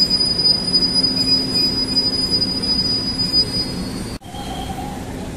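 Electric commuter train (KRL) at the platform with a steady high-pitched wheel squeal over a low steady hum. The squeal fades out and the whole sound cuts off suddenly about four seconds in.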